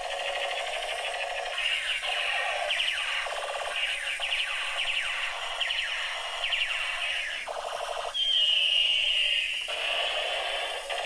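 Battery-powered toy projection light gun playing its electronic shooting sound effects through a tiny speaker, thin and without bass: a run of quick falling laser zaps, then one longer falling whine a little past the middle.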